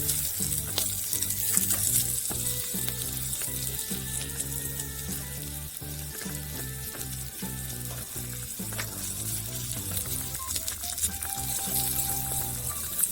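Food frying and sizzling in hot oil in a miniature pot, a steady crackling hiss, over background music with a repeating bass line.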